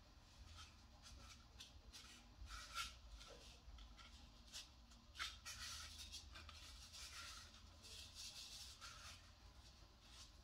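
Faint, irregular scratchy rubbing as hands turn and slide over a dried bottle gourd, over a steady low hum.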